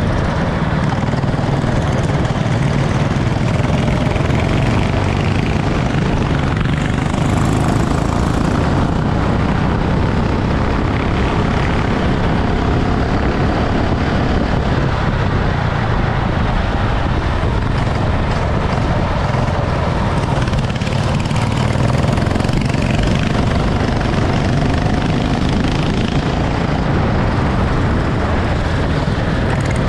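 Go-kart engine running with a steady buzzing note, heard over a constant rush of noise.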